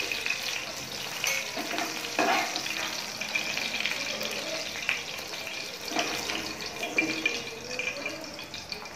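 Chicken pieces frying in hot oil in a pan: a steady sizzle, with a few short scrapes and taps as a slotted metal spatula lifts the pieces out.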